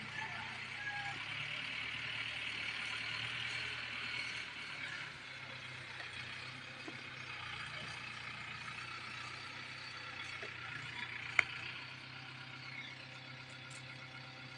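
An engine running steadily with a low hum, with a single sharp click about eleven seconds in.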